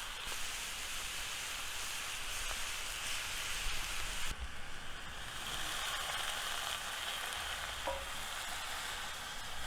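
Chicken frying with onions in a hot wok, a steady sizzle. The sizzle changes abruptly about four seconds in.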